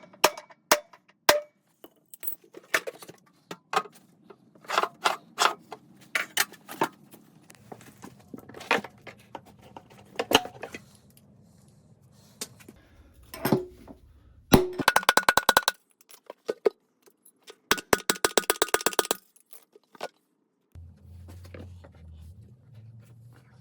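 Metal tools and parts clinking and knocking during washing-machine disassembly, with two bursts of rapid, evenly spaced clicking in the middle and a low steady hum starting near the end.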